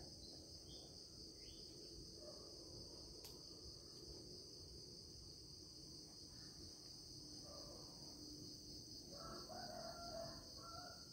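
Near silence: a steady high trill of crickets, with a few faint bird calls near the end.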